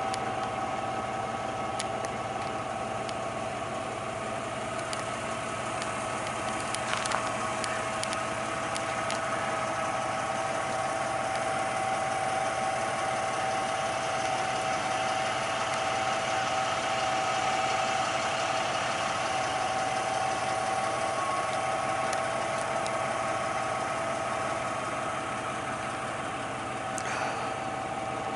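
A steady mechanical hum, like an engine idling, holding two even tones throughout, with a few faint clicks.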